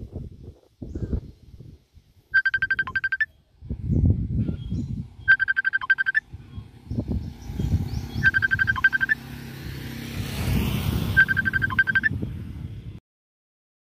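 Telephone ringing: four short trilling rings of rapid pulses on one pitch, about three seconds apart, over low rumbling noise. All sound cuts off shortly before the end.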